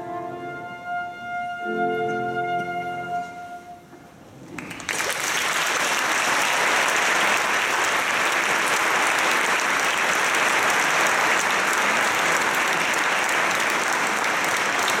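A flute holds the final note of the piece over a piano chord, and the sound dies away. About five seconds in, an audience breaks into steady applause.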